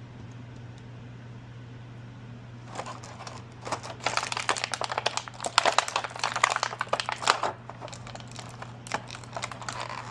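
Plastic packaging crinkling and crackling as it is handled. A dense run of crackles starts about three seconds in and lasts to about eight seconds, followed by a few scattered crackles, all over a steady low hum.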